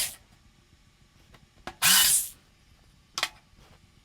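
Small drill run in short trigger bursts while drilling small holes in wood: one burst ends just after the start, a longer one about two seconds in, and a brief one near the end, each whirring up and falling away.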